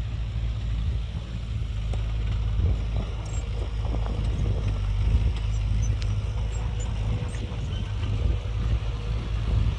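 Heavy diesel engine of earthmoving machinery running steadily: a deep, continuous rumble with a faint steady whine above it and a few light clicks.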